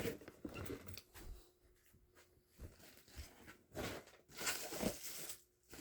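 Faint handling noises: soft rustles and a few short clicks and scrapes, with quiet gaps between them.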